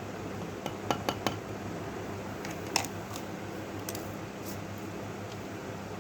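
Light clinks of small hard objects, such as a tool against a container: three in quick succession about a second in and one more near three seconds, over a steady low hum.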